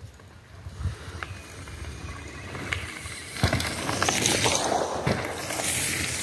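A BMX bike ridden past close on a dirt trail, its tyres rolling over dirt and dry grass. The sound grows louder from about halfway through, starting with a sharp click.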